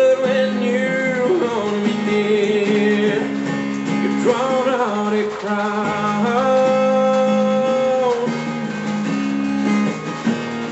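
A sung love song with guitar accompaniment, played at full volume through the built-in speakers of an M3 audio laptop cooling pad. The singer holds long notes over a steady low accompaniment.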